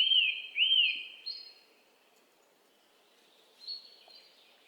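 Bird-like tweets: two quick rising-and-falling chirps in the first second, then quiet, with fainter high calls near the end.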